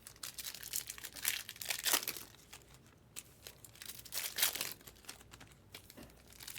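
Trading-card pack wrappers crinkling and tearing as packs are opened and handled, in irregular crackly bursts.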